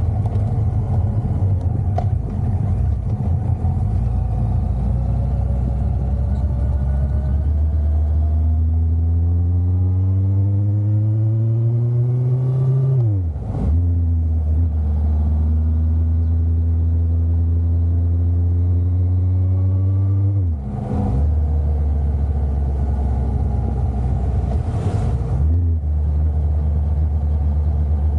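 Motorcycle engine under way, pulling up through the gears: its pitch climbs steadily for several seconds, drops sharply at a gear change about 13 seconds in, climbs again and drops at another change about 21 seconds in, then holds steady.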